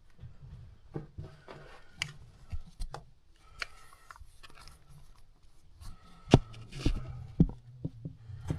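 Scattered scuffs, rustles and small knocks of people moving about in a mine tunnel, with two sharper knocks a little past halfway.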